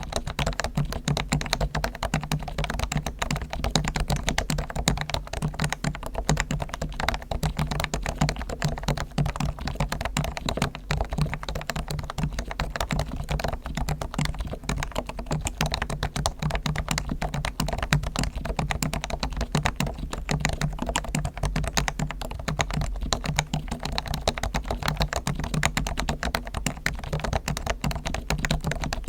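Topre electrostatic-capacitive keyboard (Realforce R1), with fully lubricated springs, sliders and stabilizers and a dampened case, typed on continuously in a fast, even stream of soft keystrokes.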